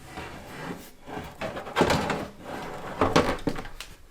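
A computer power supply being slid into the PC case's bottom bay: scraping, with several knocks against the case, the loudest about two and three seconds in.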